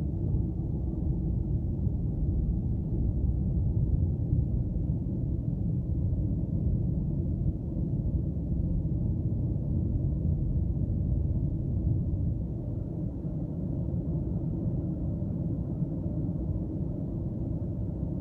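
Steady low rumble of a car driving at highway speed, heard inside the cabin: tyre and road noise on a snow-covered road with the engine under it.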